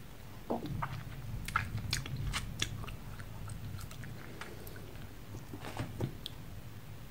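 Someone chewing and sucking a hard tablet candy close to the microphone: a run of short crunches and wet clicks through the first few seconds, and a few more near six seconds.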